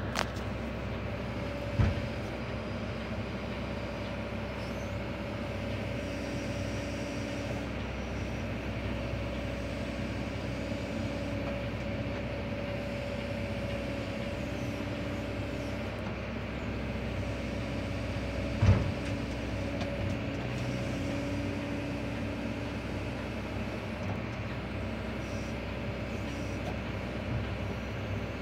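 Kobelco long-arm excavator's diesel engine running steadily, heard from inside the cab, with a higher hydraulic whine that comes and goes as the arm and bucket shift. Two sharp knocks, a small one about two seconds in and a louder one a little past the middle.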